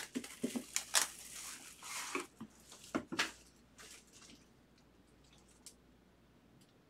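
Hands handling and unwrapping a sealed cardboard box of trading cards: packaging rustling and crinkling, with several sharp taps and clicks. The handling stops after about three seconds.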